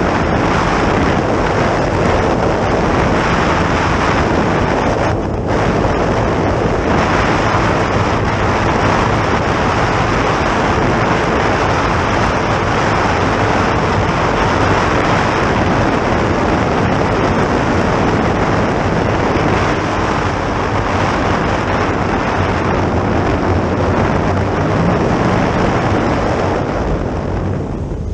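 Steady wind rush over the microphone mixed with outboard engine and water noise from a boat running at high speed.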